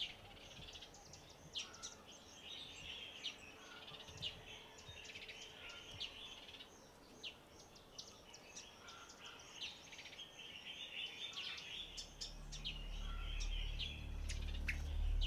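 Birds chirping and calling, short high chirps scattered throughout. From about twelve seconds in, a low steady hum fades in and grows louder.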